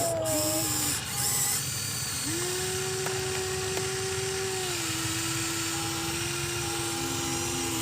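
Electric gear motors of a Huina 1593 RC excavator whining steadily as it works. The whine steps slightly down in pitch about halfway through.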